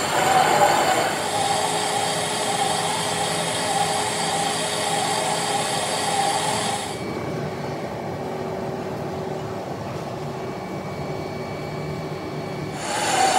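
Vertical lathe turning a cast iron pulley blank: steady machining noise from the spinning chuck and the cutting tool, with a strong mid-pitched band. About seven seconds in, the higher noise drops away and leaves a quieter, lower machine hum. The full noise returns abruptly near the end.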